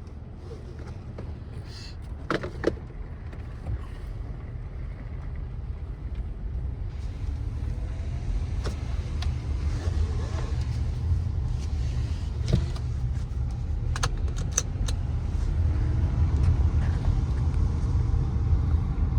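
Kia Sorento driving: a steady low road and engine rumble that grows louder as the car gathers speed. A couple of sharp clicks come about two seconds in, and a quick run of ticks about fourteen seconds in.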